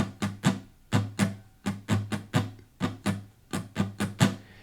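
A guitar strummed in a steady rhythm of short, sharp strokes, about four a second, setting out the song's tempo.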